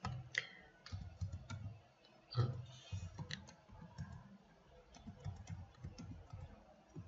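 Computer keyboard being typed on: an irregular run of key taps as short numbers are entered, each followed by the Enter key.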